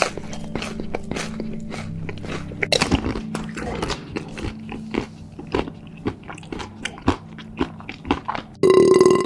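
ASMR eating sound effect of crunchy chewing: a quick, irregular run of crisp crunches and bites over a faint steady music bed. Near the end a short, loud tone sounds and cuts off suddenly.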